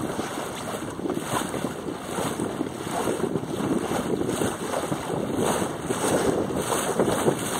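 Wind buffeting the microphone, with a continuous rushing wash of choppy water as a small sailing dinghy sails along.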